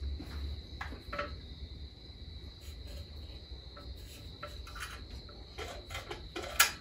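Scattered light clicks and knocks of hands and tools working in a car's engine bay, with a sharper knock near the end, over a steady faint high-pitched whine and a low hum.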